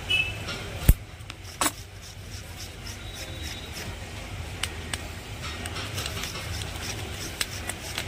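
Small clicks and ticks of thin copper winding wire being twisted together by hand to join the leads of a table fan's stator coil, with a sharp click just under a second in and another about a second later, over a low steady background hum.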